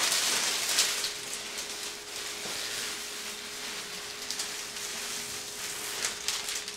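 Handheld spray bottle misting water onto the adhesive back of security window film as its backing is peeled away: a steady hiss of spray, with a run of quick squirts in the first second and again about six seconds in.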